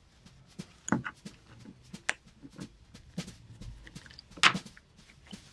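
Hobby-knife blade cutting through the stitched seam of a leather wallet, with the leather being handled and pulled apart: an irregular string of short scratches and clicks, the loudest about four and a half seconds in.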